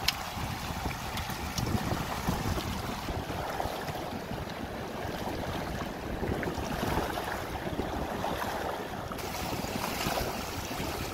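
A mackerel school feeding at the surface: a steady patter of many small splashes, with wind noise on the microphone.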